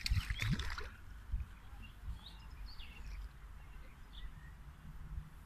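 A hooked bream splashing at the water's surface as it is reeled in, loudest in the first second, then small birds chirping briefly here and there.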